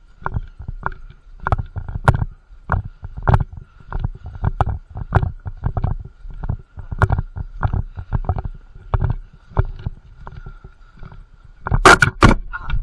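Walking footsteps heard through a body-worn action camera in a waterproof case: an even thud with a light rattle of gear about every half second. Near the end comes a quick cluster of louder, sharper clacks.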